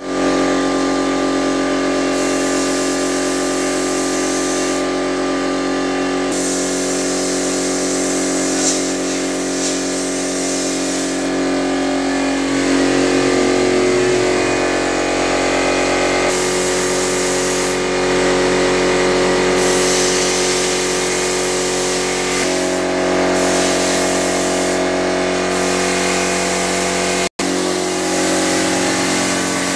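Air compressor running with a steady hum, while a paint spray gun's hiss starts and stops every few seconds as the trigger is pulled and released. The sound drops out for a moment near the end.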